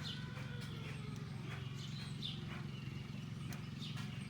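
Backyard birds chirping in short, scattered calls over a steady low mechanical hum.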